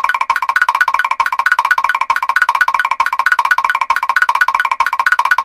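Mr. Krabs' walking sound effect from SpongeBob SquarePants, looped: a rapid, even run of pitched clicking taps, loud and unbroken.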